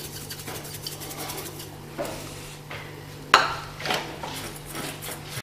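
Metal salt shaker shaken over a pot of cubed eggplant, rattling with quick light ticks. Then a few separate metal clanks, the loudest about three seconds in, as the shaker is set down and the aluminium pot is moved on the counter.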